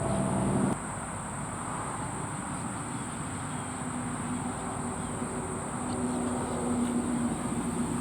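Steady high-pitched insect drone, cricket-like, over the low hum of road traffic; a low engine drone cuts off abruptly less than a second in, and another engine hum comes up later.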